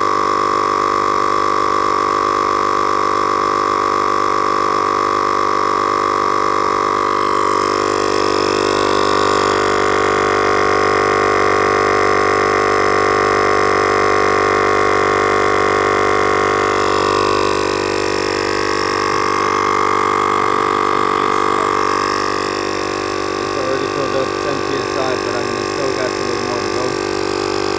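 Husky portable tire inflator's air compressor running steadily as it pumps a car tire up from low pressure. It is a loud, even drone whose tone shifts slightly partway through, with a few light clicks near the end.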